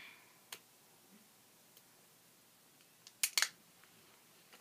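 Scissors cutting a piece of sticky tape: a small click near the start, then two sharp snips in quick succession about three seconds in.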